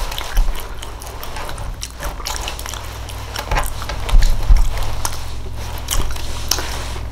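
Close-miked chewing of a mouthful of quiche, with irregular wet smacking and clicking mouth sounds over a steady low hum.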